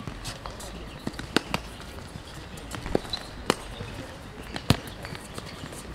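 A futsal ball kicked and bouncing on a hard synthetic court: about half a dozen sharp, separate thuds, the loudest about three-quarters of the way through.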